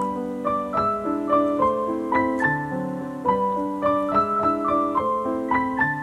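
Background piano music: a melody of single notes moving up and down over held lower notes.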